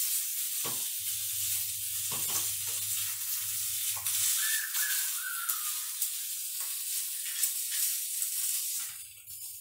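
A deboned chicken thigh frying in fat in a pan, with a steady sizzling hiss and a few small clicks and spatters. The sizzle fades out about nine seconds in.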